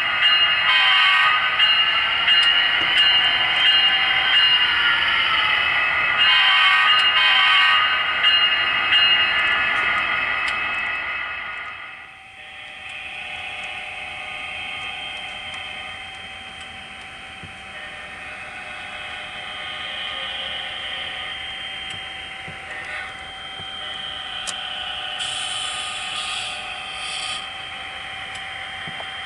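Horn of a sound-equipped HO-scale model locomotive, a chord of several steady tones, sounded in long blasts with short breaks for about twelve seconds. After a sudden drop, a quieter steady running sound follows.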